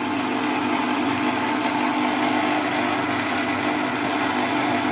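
Electric citrus juicer's small motor running with a steady hum.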